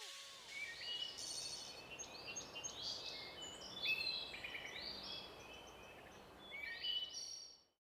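Birds singing faintly: many short chirps and trills, over a low steady hiss of outdoor background noise. All of it stops suddenly near the end.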